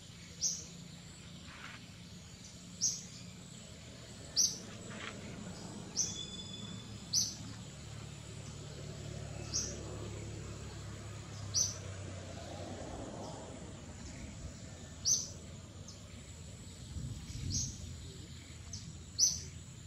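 A bird giving short high chirps, about ten of them, one every one to two seconds, over a steady thin high-pitched insect drone and forest background.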